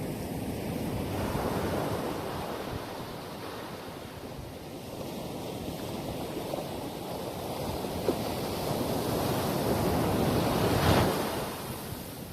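Ocean surf washing onto a beach as a continuous rush that swells and ebbs, with one wave breaking loudest near the end.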